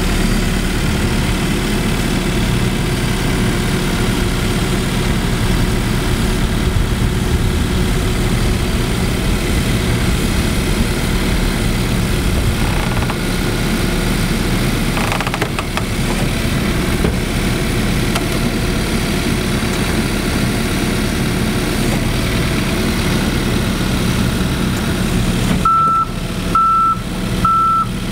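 Case backhoe loader's diesel engine running steadily under hydraulic work as it holds the pole. Near the end its reversing alarm starts, three beeps a little under a second apart.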